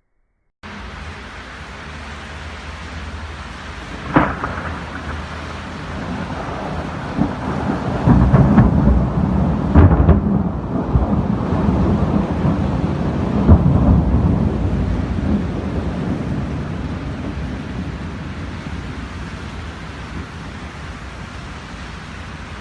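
Thunderstorm: steady heavy rain with a sharp thunderclap about four seconds in, then a long rolling thunder with several loud cracks, loudest around ten to fourteen seconds in and slowly dying away.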